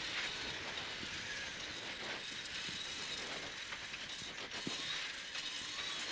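Steady running noise inside a cross-country rally car's cockpit at speed on a dirt track: engine, tyre and gravel noise with a constant rattling of the cabin.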